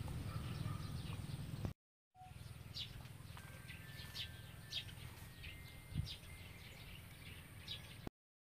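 Birds chirping, many short repeated calls over a low background rumble. The sound cuts out briefly about two seconds in and again near the end.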